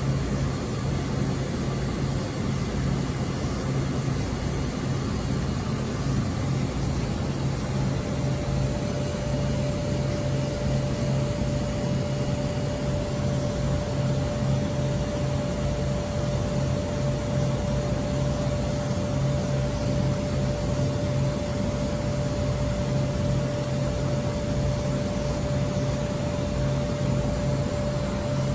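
WFL M35G Millturn CNC turning center running with its spindle turning the workpiece: a steady machine hum with a haze of noise. A steady high whine joins about eight seconds in and holds.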